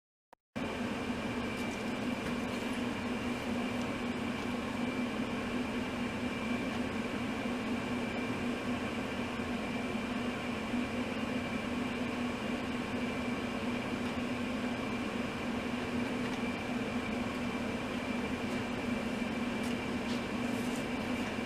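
Steady mechanical hum and hiss of a running machine, with a constant low tone and a fainter high whine, starting abruptly about half a second in.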